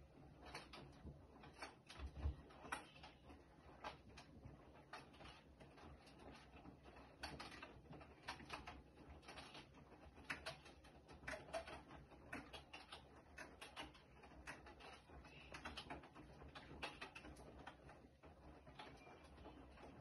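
Bosch front-loading washing machine turning its drum through a wet load of laundry: faint, irregular clicks and knocks over a low rumble, with a heavier thump about two seconds in.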